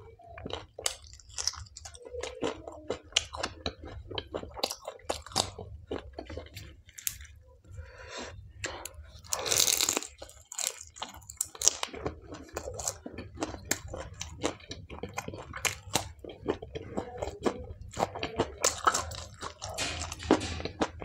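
A person eating palak paneer with butter naan and salad close to the microphone: continual chewing and crunching with many small sharp mouth clicks. There is a louder crunch about ten seconds in.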